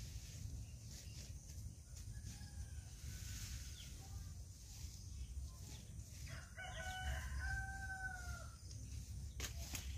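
A rooster crowing: a fainter call about two to three seconds in, then a longer, clearer crow about seven seconds in that drops in pitch at its end. A couple of sharp knocks near the end.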